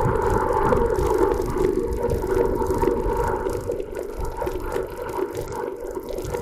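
Bajaj Boxer 150X motorcycle's single-cylinder engine running steadily under way, a droning note over a rough low rumble. It eases off a little about four seconds in.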